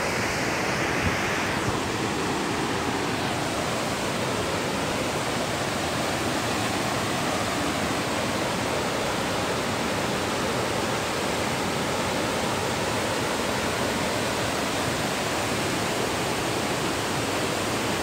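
Lafari waterfall in monsoon flood: a broad torrent of muddy water pouring over rock ledges, a steady, even rush of water.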